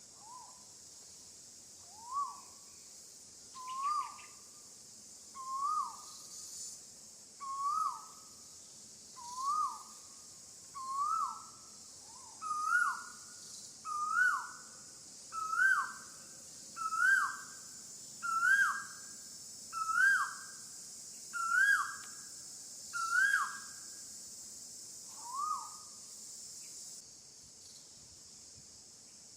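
An animal's call repeated about every second and a half: about fifteen short notes, each swooping up and then down, climbing in pitch through the series before the last one drops back. A steady high insect drone runs underneath.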